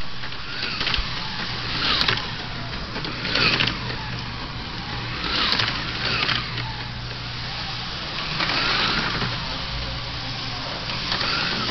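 Small electric motors of model slot cars or a model train whining as they run on a toy layout, swelling every couple of seconds as they pass close by, over a steady low hum.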